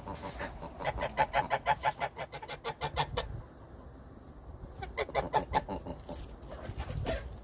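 Chickens clucking in two quick, rapidly repeated runs of calls: one starting about a second in and lasting about two seconds, and another around five seconds in.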